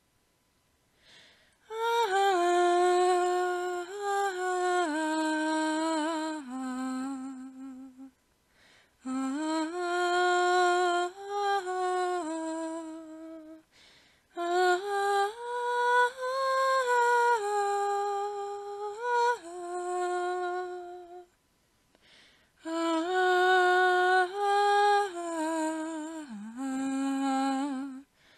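A voice humming a slow, wordless tune in four long phrases, holding and stepping between notes, with short breaks between them.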